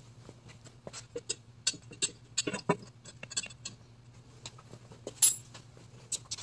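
Small metal clicks and clinks as parts and tools are handled on the Corvair flat-six engine, in an irregular run with a cluster near the middle and one sharp, ringing clink about five seconds in.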